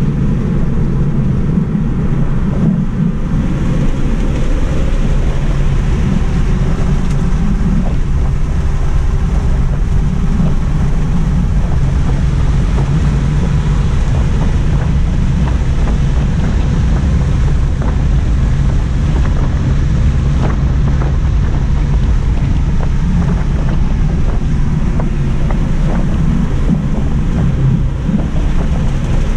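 Cabin noise inside a Tesla Model 3 Mid Range RWD at track speed: a steady, loud rumble of road and wind noise, with a faint rising whine from the electric drive motor as the car accelerates in the first several seconds.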